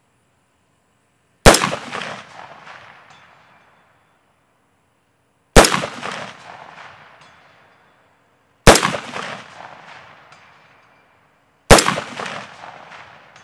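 Four unsuppressed rifle shots from a DRD Tactical M762, a semi-automatic rifle in 7.62×51 NATO, fired a few seconds apart; each shot is followed by a long echo that fades over about two seconds.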